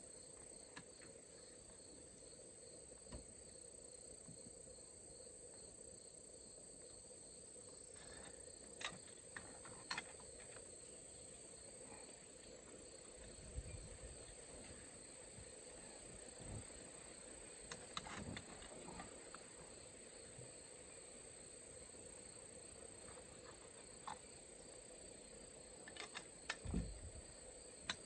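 Faint, steady insect chirring, with scattered light clicks and taps and a few soft knocks about halfway through and near the end.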